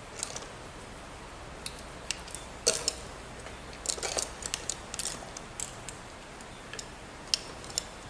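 Irregular small clicks, taps and scratches of a wire being handled and worked into a fire alarm control panel, bunched in the middle with one sharp click near the end.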